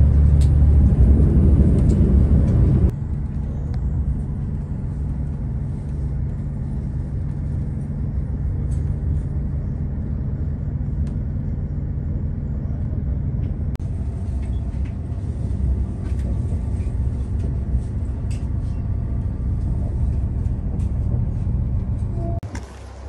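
Steady low rumble of a train running, heard from inside the carriage. It is louder for about the first three seconds, then settles to an even level with a few faint clicks.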